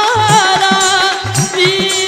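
Background music: a melody with a wavering, ornamented pitch over a steady drum beat of about two beats a second.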